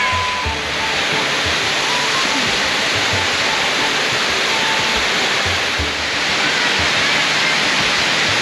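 Loud, steady rushing of falling water, a waterfall or cascading creek, with occasional low thuds underneath.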